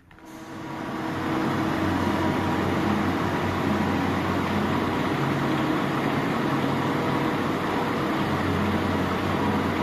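Diesel engine of a DAF XF 510 truck idling steadily.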